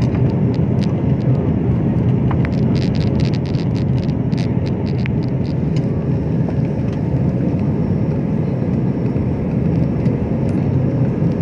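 Steady jet engine and airflow noise heard inside a jet airliner's cabin during the climb after takeoff. A run of light clicks sounds from about two and a half to five seconds in.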